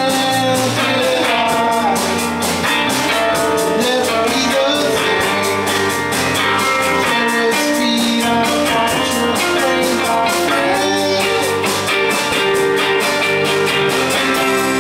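Live rock band playing an instrumental passage: two electric guitars, one a teal solid-body and one a red semi-hollow, over a drum kit with regular drum and cymbal hits.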